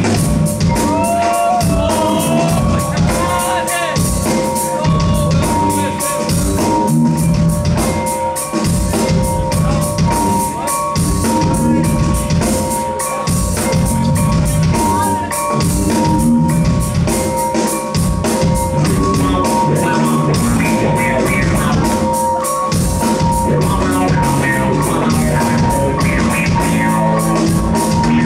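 A live rock band playing loud music: a fast, driving drum beat and bass under long held high notes.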